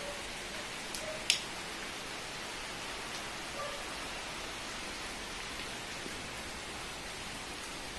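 Rain falling steadily, an even hiss of raindrops on roofs and surfaces, with one sharp tap about a second in.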